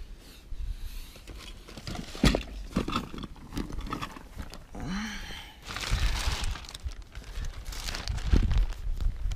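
Rustling and handling noise with scattered short knocks as someone moves about inside a car cabin.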